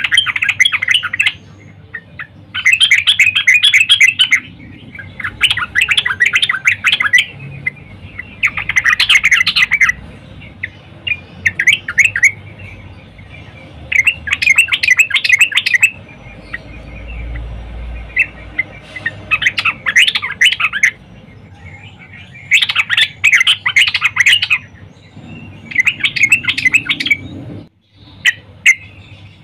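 Yellow-vented bulbul (trucukan) singing: about ten bursts of rapid, bubbly chattering notes, each a second or two long, with short pauses between. This is the female's call, used to lure and excite males into song.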